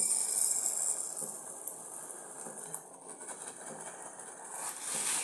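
Red rice grains being poured from a small tumbler into a vessel, a hissing rattle that is strongest at the start, tails off, and swells again near the end with the second pour.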